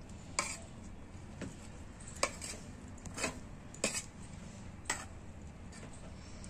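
Metal serving spoon clinking and scraping against a steel pot while scooping rice, a handful of separate sharp clinks a second or so apart.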